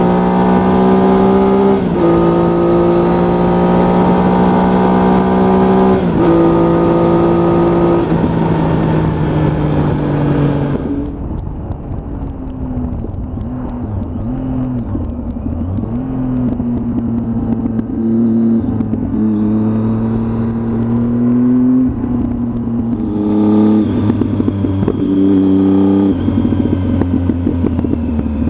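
Triumph Tiger motorcycle engine pulling through the gears: the pitch climbs and drops sharply at each upshift, about two and six seconds in. It then runs at lower, wavering revs for some ten seconds before accelerating again with quick shifts near the end.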